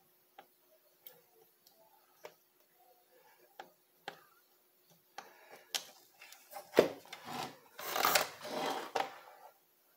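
A printed circuit board being handled: faint scattered clicks at first, then from about five seconds in a sharp knock and a couple of seconds of scraping and rattling as the motherboard is picked up and turned over on a hard surface.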